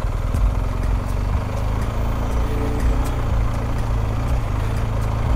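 BMW R1250GS's boxer-twin engine running steadily as the motorcycle rides along a dirt forest track.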